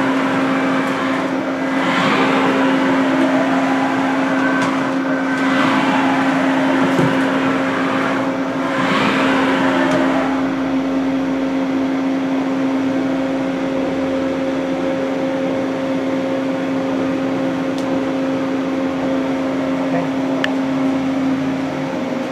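Haas VF-3 vertical machining center jogging its Y axis: the axis drive whines up and down in pitch three times over the first ten seconds as the table moves, over the machine's steady hum, which carries on alone for the rest of the time.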